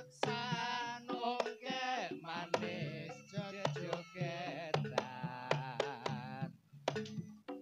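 Jaranan gamelan music played over a sound system: regular kendang drum strokes and low sustained gong tones under a wavering high melody line. The melody stops about six and a half seconds in, leaving the drums on their own.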